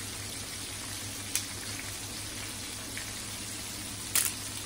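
Chicken wings frying in oil in a pan: a steady sizzle with a low hum underneath, a faint tick a little over a second in and a brief sharp crackle about four seconds in.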